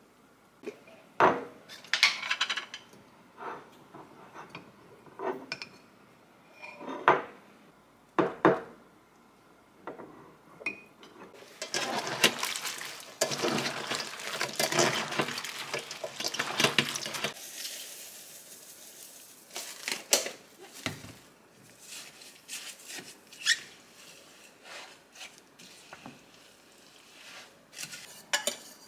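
Kitchen mixing sounds: utensils clinking and scraping against a glass mixing bowl. In the middle comes a stretch of about six seconds of wet rustling as salted napa cabbage leaves are turned over by hand in a stainless steel bowl. Near the end a spatula stirs kimchi seasoning in a glass bowl, with more clinks.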